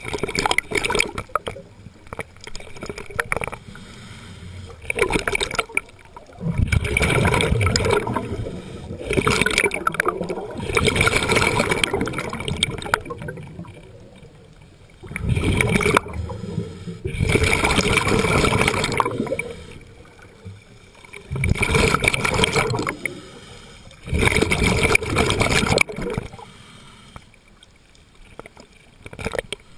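Scuba diver breathing through a regulator underwater: exhaled bubbles gurgling and rushing in loud bursts of one to three seconds, about every three to four seconds, with quieter gaps between breaths.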